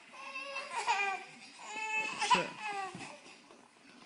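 Baby laughing in high-pitched squeals, in two bouts, the second longer.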